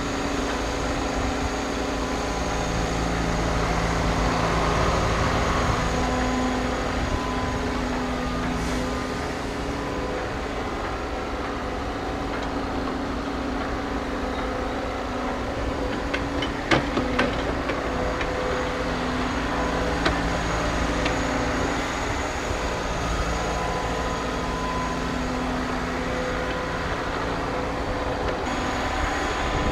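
Heavy construction machinery running with a steady drone and hum. A few sharp knocks come a little past halfway.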